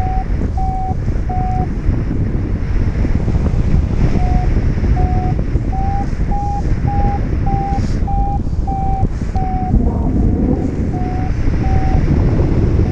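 Heavy wind rush on the microphone in flight, with a flight variometer beeping about once or twice a second. The beeps stop for about two seconds near the start, then rise slightly in pitch through the middle and drop back: the sound of the glider climbing in lift.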